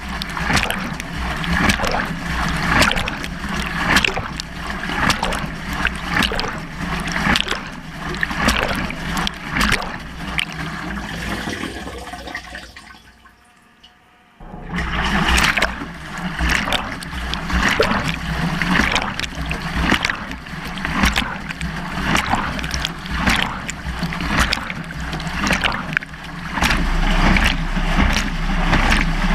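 Water sloshing and splashing around a BEKO washing machine drum as it tumbles, heard from inside the drum. About halfway through the drum pauses and the sound drops almost away for about two seconds, then the tumbling and splashing start again.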